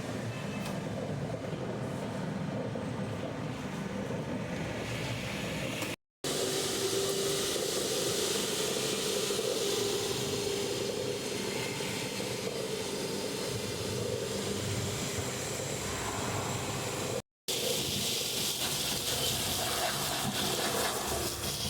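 Industrial triple-motor wet-and-dry vacuum cleaner running: a steady rushing hiss with a hum, cut off briefly twice, about 6 and 17 seconds in.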